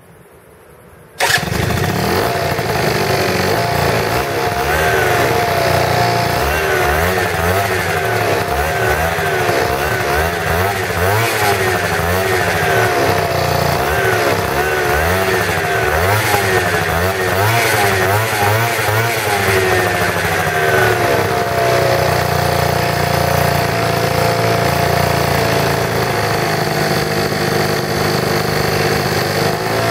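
A Zipp Quantum scooter's engine and exhaust start suddenly about a second in. The engine is then revved up and down over and over, and settles to a steadier run near the end.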